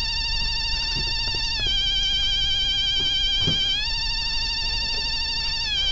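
Continuous electronic warbling tone, like a phone ringer or alarm. It steps up and down between two pitches about every two seconds.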